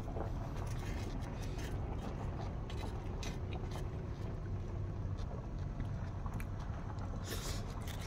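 Chopsticks clicking and scraping lightly against an iron griddle and a rice pot, over a steady low rumble.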